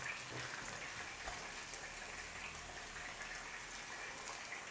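Stock being poured into a hot pot of browned chicken and vegetables: a faint, steady liquid pouring and simmering, with a few small ticks.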